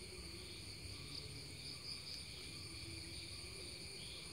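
Faint, steady high-pitched chorus of insects droning without a break.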